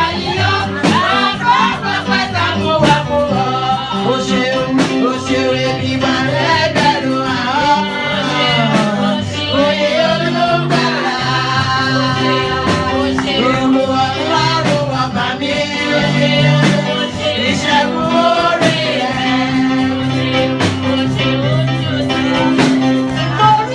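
Music with a singing voice over guitar and a steady bass line.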